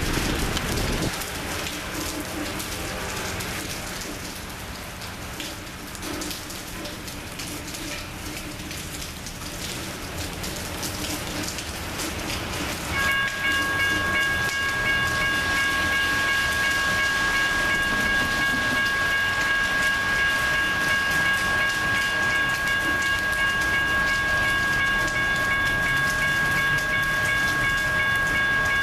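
Steady rain falling on a station platform while an Amtrak passenger train approaches. About halfway through, a steady high-pitched ringing tone with several overtones begins and holds unbroken.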